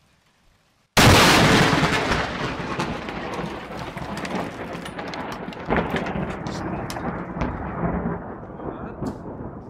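A very close lightning strike: a sudden, loud thunderclap about a second in, followed by crackling, rumbling thunder that slowly fades. A few sharp knocks stand out in the rumble.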